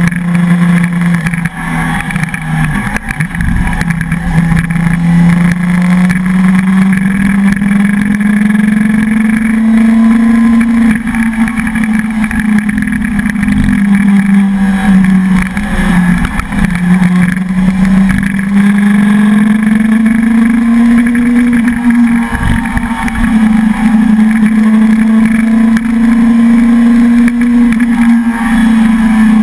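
Suzuki sport motorcycle engine running under load while riding, its note slowly rising and falling with the throttle. Wind rumbles on the microphone in gusts.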